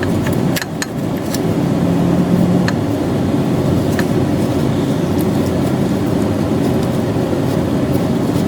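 A steady low mechanical rumble, like a running engine or machine, with a few light sharp clicks of hand tools on metal scattered through it.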